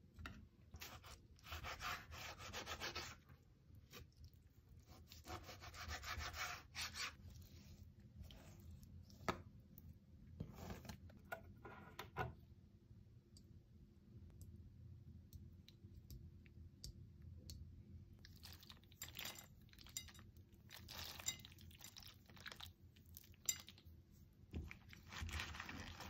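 Faint salad-making sounds: a knife scraping and cutting sun-dried tomatoes on a cutting board, then a metal spoon tossing salad leaves in a bowl, in short scraping and rustling spells with quiet gaps and a few light knocks.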